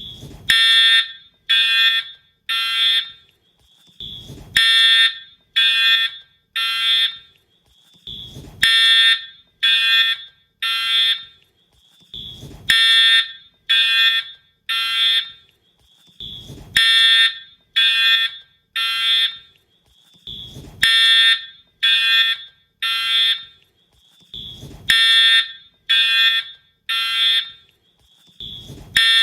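Wheelock-style fire alarm horn sounding the temporal-3 evacuation pattern: three short, buzzy, high-pitched blasts, a pause, then three more, repeating about every four seconds. A brief low thud comes just before each group of three.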